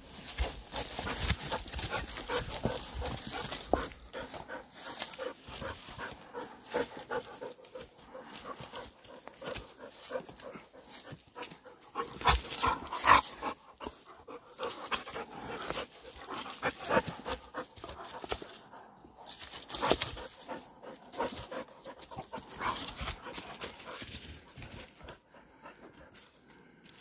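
Dogs panting close to the phone while a hand pets them, with irregular rustling and handling noise; the loudest moment comes about halfway through, and it all quietens near the end.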